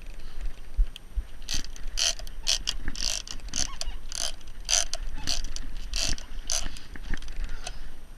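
Big-game fishing reel being cranked, its gears and pawl clicking in short repeated strokes about twice a second as line is wound back in.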